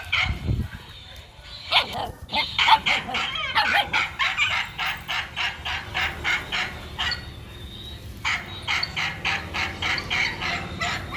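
An animal giving rapid strings of short, sharp calls, about four or five a second, in two long runs with a short break between them.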